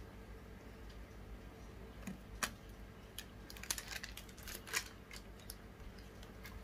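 Plastic sweet wrapper crinkling and tearing as it is opened by hand: soft, scattered crackles and sharp little clicks, a few louder ones in the middle.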